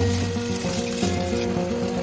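Background instrumental music with a steady melody, over the sizzle of food frying in a pan.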